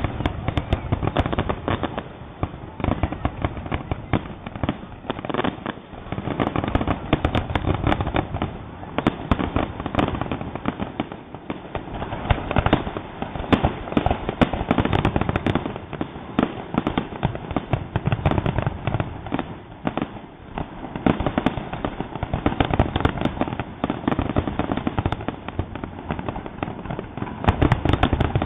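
Fireworks finale: a continuous, dense barrage of aerial shell bursts and crackling reports, many overlapping booms with no pause.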